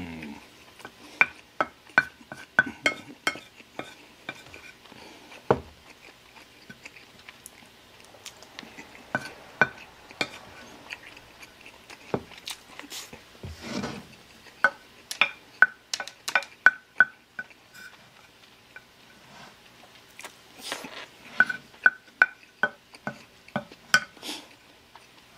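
Wooden spoon scraping and clinking against a ceramic plate while scooping up fried rice, in bursts of quick ringing taps, with chewing in between.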